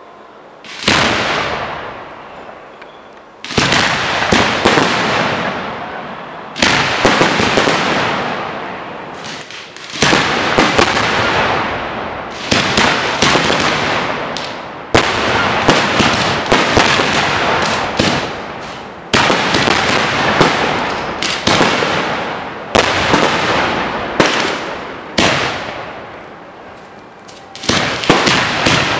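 Aerial fireworks shells bursting at close range. The first bang comes about a second in, then bangs follow every one to three seconds, each fading out with a rumble, with clusters of sharp crackling reports among them.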